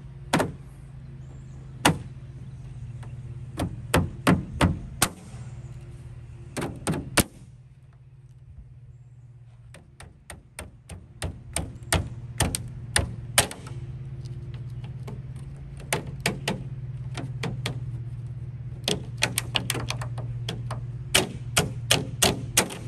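Pontiac G8 factory rear spoiler being tapped from underneath to knock it loose from the clips on the trunk lid: repeated sharp taps in irregular runs with short pauses between them.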